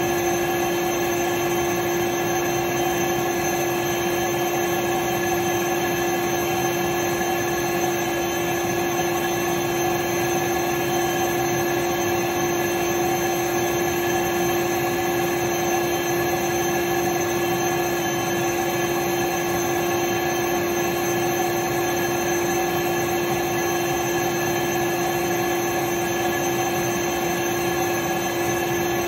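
Canister vacuum cleaner running steadily: an even rush of air under a constant motor whine that holds one pitch and never changes.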